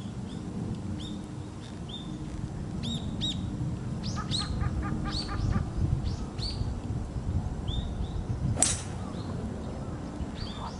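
Birds chirping repeatedly in short arching calls over a low outdoor rumble. About eight and a half seconds in comes one sharp crack: a 4-utility (hybrid) club striking a golf ball off the tee.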